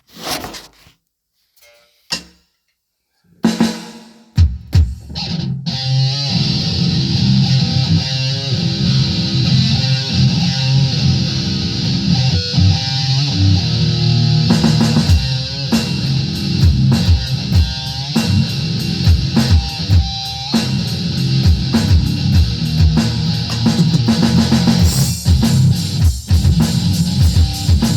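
Instrumental rock music with guitar and drum kit, starting about four seconds in after a few faint clicks and then running on with a steady beat.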